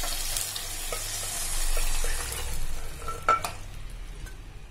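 Thin cooked toor dal poured into a hot steel kadai of sautéed onion, tomato and brinjal, sizzling as it hits the pan. A flat steel spatula stirs and scrapes through it, with a sharp tap against the pan about three seconds in.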